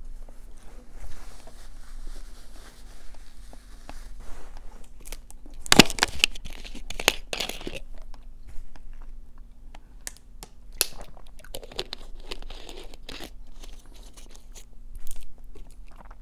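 Close-miked mouth sounds of chewing, with a thin plastic Dasani water bottle crinkling and crackling as it is handled, loudest about six to eight seconds in, and more crinkles later.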